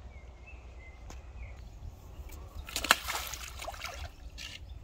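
A large fish dropped from a landing net hits shallow water with a loud splash about three seconds in, then thrashes and sloshes briefly among the reeds as it swims off.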